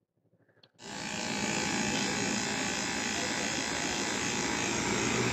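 Steady buzzing hiss at the front tyre valve of a Yamaha motorcycle while its air pressure is being adjusted. It starts about a second in, after near silence.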